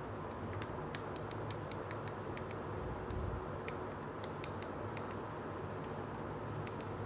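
Light, irregular clicks and ticks of a small hard-plastic toy kitchen piece being handled and turned in the hands, over a steady low background noise.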